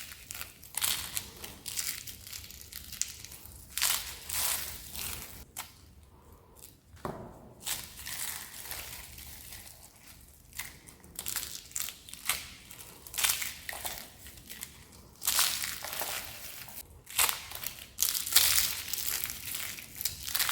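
Dry, crispy soap being crushed: a run of irregular crisp crunches and crackles, dying down for a short lull a third of the way through, then coming thicker and louder near the end.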